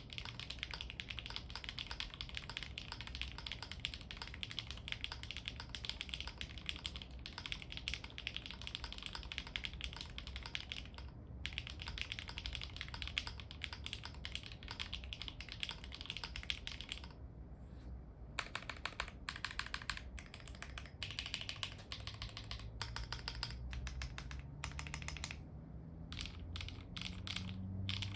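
Typing on an Akko ACR Alice Pro mechanical keyboard with factory-lubed HMX Cheese switches, an aluminium plate, no foam and GMK Handarbeit doubleshot ABS Cherry-profile keycaps: rapid continuous key clicks. From about 17 s in come single, spaced-out presses of the long stabilized keys on lubed and tuned Finalkey screw-in stabilizers.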